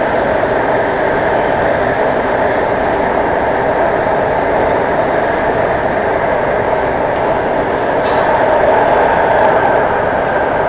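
Alstom AS-14 metro train running at speed through a tunnel, heard from inside the car: a steady rumble of wheels on rail with a hum. A couple of short clicks come near the end, as the noise swells slightly.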